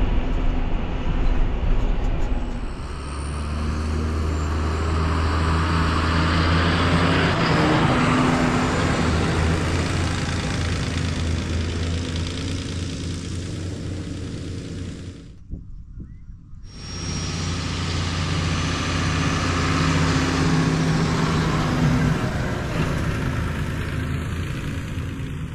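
John Deere 6630 tractor engine running steadily as the tractor drives and works across a paddock spreading urea, with a broad hiss over the engine hum. The sound drops out for about a second roughly two-thirds through, then the engine comes back.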